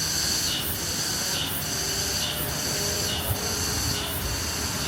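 Cicadas buzzing in a chorus, a high drone that swells and dips about once a second, over a low steady hum of street traffic.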